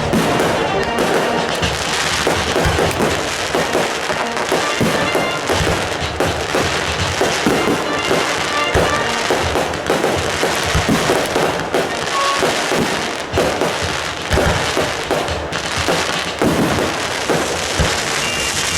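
Fireworks going off densely and without a break: continuous crackling with many pops and bangs.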